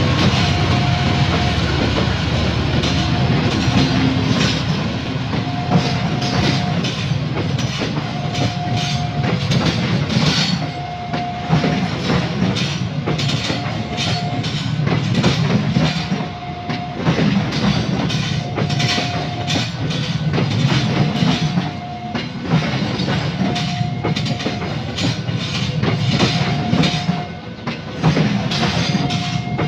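A diesel-electric locomotive runs past close by, and then passenger coaches roll past with a steady clickety-clack of wheels over rail joints. A short warning tone from the level crossing repeats about every two seconds throughout.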